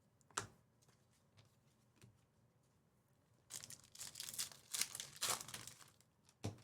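A trading-card pack wrapper being torn open and crinkled: about two and a half seconds of tearing and crackling starting past the middle. A sharp tap comes near the start and another just before the end.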